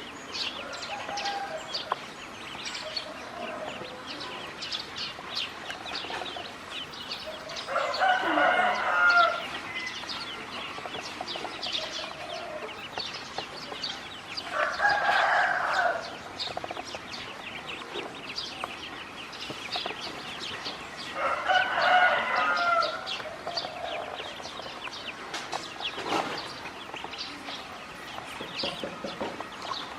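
A rooster crowing three times, each crow about a second and a half long and spaced about seven seconds apart. Short high chirps keep up throughout.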